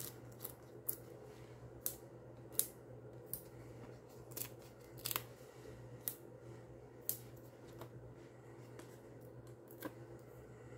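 Scattered small clicks and ticks as foam adhesive dots are peeled from their backing sheet and pressed onto the back of a paper card panel to pop it up.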